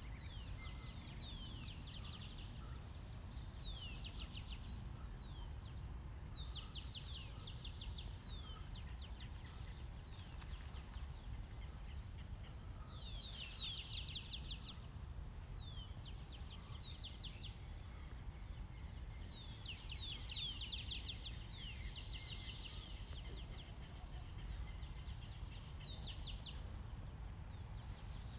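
Swallows twittering in flight: clusters of quick, high, falling chirps every few seconds. A steady low rumble runs underneath.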